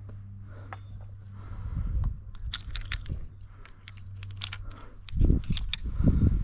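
Metal climbing hardware (carabiners and quickdraws) clinking and jangling at a bolted top anchor as a series of sharp clicks, with loud low rumbling bumps of handling near the end.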